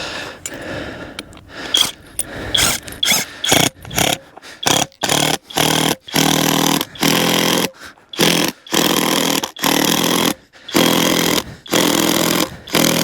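Impact drill driving a tent screw into the ground in about a dozen short trigger bursts, each under a second, with brief pauses between.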